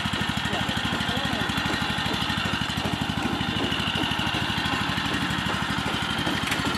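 The small single-cylinder engine of a walk-behind rice transplanter running steadily with a fast, even putter as the machine works through the paddy. Faint voices can be heard in the background.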